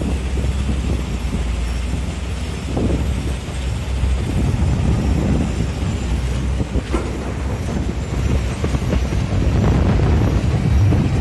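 Diesel engine of heavy earthmoving equipment running with a steady low rumble, with a few short knocks about three and seven seconds in.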